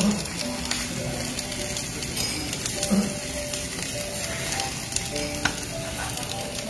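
Hanwoo beef, garlic and green peppers sizzling in a hot pan, being stirred and turned with tongs, with a few light clicks.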